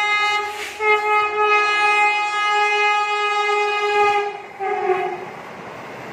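Horn of the Vande Bharat Express sounding as the train runs through the station: one long steady blast, broken briefly about a second in, then a shorter, slightly lower blast near the five-second mark. After that the rush of the passing train carries on.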